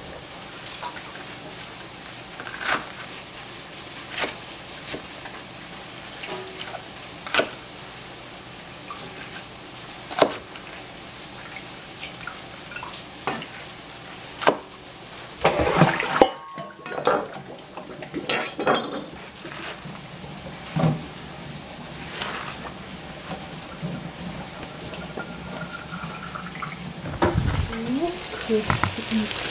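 A knife cutting baby bok choy on a plastic cutting board, with a sharp knock every couple of seconds as the blade hits the board. Under it runs the steady sizzle of vegetables and tofu frying in a pot on the stove, which grows louder near the end.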